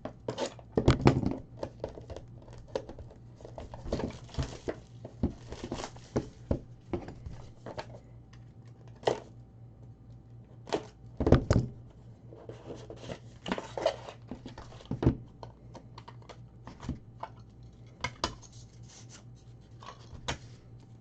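Trading-card packaging being torn open and handled: plastic wrap and foil packs tearing and crinkling, with scattered taps and knocks of cardboard boxes. A faint steady electrical hum sits underneath.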